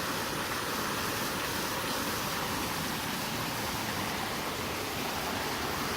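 Steady rush of flowing creek water, an even noise that holds unchanged throughout.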